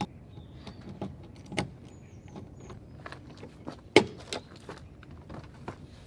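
Car door being unlatched and swung open: a series of sharp clicks and knocks from the handle and latch, the loudest about four seconds in as the door comes open.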